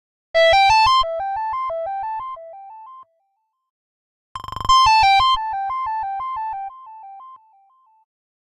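3Q Qoo!-XL mobile phone playing a synthesized ringtone: a short, quick melody of bright electronic notes over a ticking beat. It plays twice with a pause of about a second between, and each time it steps down in loudness toward its end.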